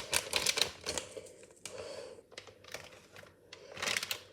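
Quick, irregular light clicks and crinkling from cake mix being handled and mixed in a bowl. The clicks come thickly at first, then thin out to scattered taps, with a few more near the end.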